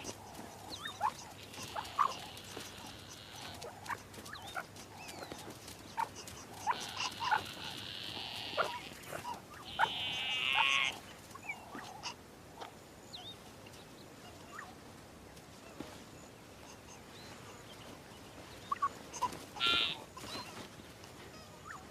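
A young antelope bleating in distress: several high-pitched calls, each about a second long, with pauses between them. It is being caught and knocked down by cheetah cubs.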